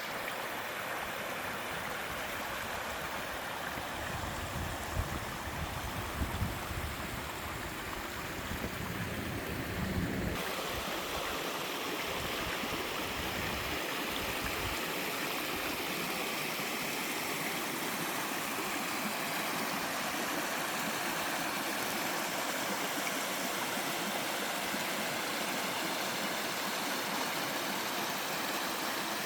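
Small waterfall and mountain stream splashing steadily. About ten seconds in the sound changes abruptly to a brighter, hissier rush of water, and the low rumble heard before it drops away.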